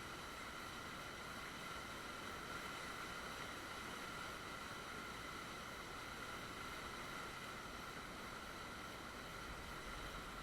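Steady, even hiss of running creek water through an action camera's microphone, with a faint constant whine of high tones from the camera's own electronics.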